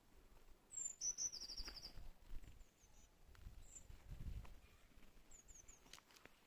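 A small songbird singing faintly: a high slurred note followed by a quick trill of about ten notes about a second in, then a few faint short high notes later on.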